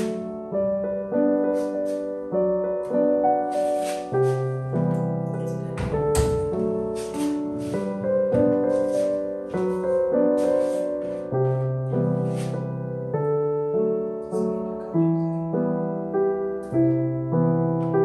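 Background piano music, a run of notes played in a steady, even rhythm.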